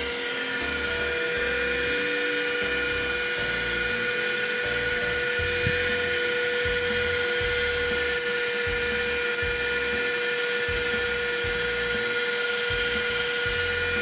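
BOLDe Super Hoover X Mercury cordless handheld vacuum cleaner running steadily, its motor giving a constant high whine over airflow hiss.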